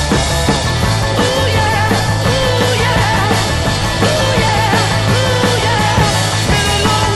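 Rock music with a singing voice over a steady bass and drums, loud and even throughout.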